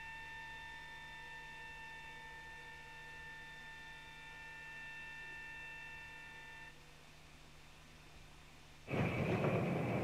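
Snow-plough motor car approaching, heard as a faint, steady high whine with several overtones that dies away about seven seconds in. Near the end a much louder rushing noise starts suddenly.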